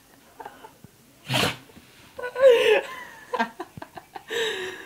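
Labrador retriever in a sneezing fit, with a sharp sneeze about a second and a half in and a person laughing right after it. The owner puts the fit down to dust she sniffed.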